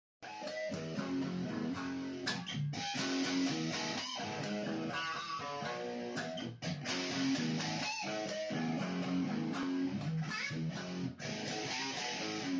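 Fender Mustang electric guitar played through an amplifier: a continuous picked riff of notes and chords, broken by a few brief stops between phrases.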